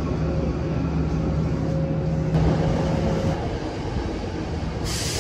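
Hankyu 2300 series electric train at the platform, a steady drone with a low hum. About three seconds in it gives way to quieter platform noise, with a brief hiss near the end.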